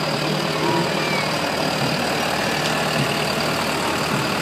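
Large farm tractor's diesel engine running steadily at low revs as it passes close by, towing a parade float.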